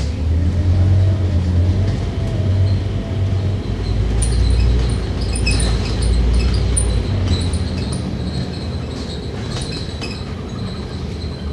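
Scania K310UD double-decker bus under way, heard from inside the cabin: its five-cylinder diesel and drivetrain run with a low rumble that is heavier for the first seven seconds or so, with a faint rising whine near the start. Light ticks and rattles from the bodywork run over it.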